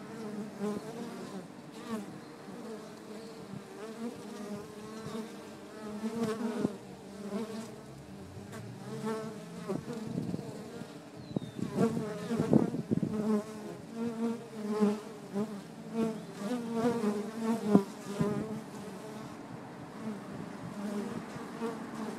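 Honeybees buzzing close up at a top-bar hive entrance, with single bees flying past in swells that come and go, busiest in the middle of the stretch.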